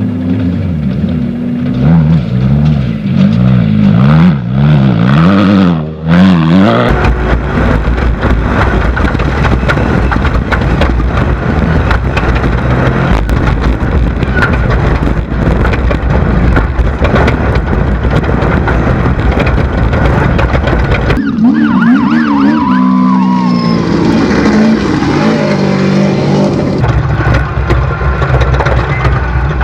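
Off-road race buggy engines revving and running hard, pitch rising and falling with throttle and gear changes. A long stretch in the middle is dense, rough rumbling noise of a vehicle at full speed. Revving tones return suddenly near the end.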